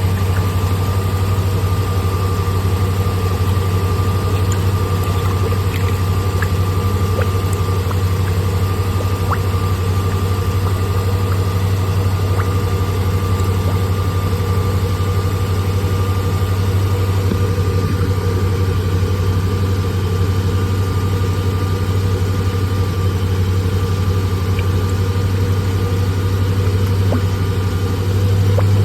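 Hemi V8 engine running steadily at a held, slightly raised idle while its cooling system is bled of air, the engine warm with its thermostat open; a faint steady whine runs alongside, and the engine gets a little louder near the end.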